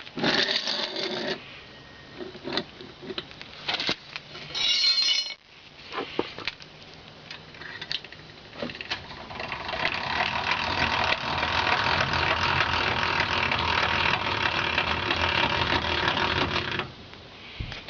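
A threaded car jack being set in place with a few knocks and clanks, then cranked by hand. From about nine seconds its screw and gears turn in a steady grinding whirr that stops shortly before the end.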